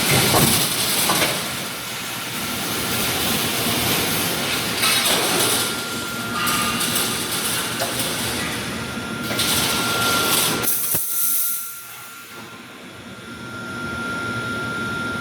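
Wire mesh welding machine running, a loud, steady machine noise with bursts of hissing about five seconds in and again around ten seconds. A thin steady whistle joins from about five seconds on, and the noise drops briefly near the end.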